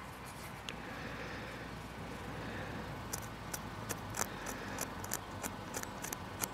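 Soil and small stones being scraped and sifted by hand while digging out a buried coin: irregular small clicks and scrapes, more frequent in the second half, over a low steady outdoor background.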